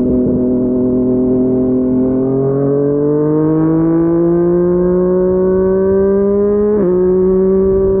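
Yamaha MT-09 inline three-cylinder engine through a Yoshimura R55 slip-on exhaust, pulling under light throttle. Its note climbs slowly as the bike gathers speed, then drops sharply near the end at an upshift and holds steady.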